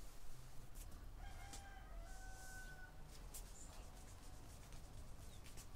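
A rooster crowing once, faintly, starting about a second in and lasting over a second.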